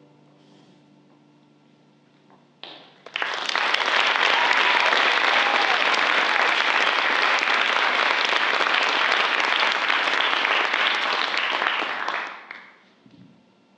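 Theatre audience applauding at the end of a sung solo. It starts suddenly about three seconds in, holds steady for about nine seconds, then dies away.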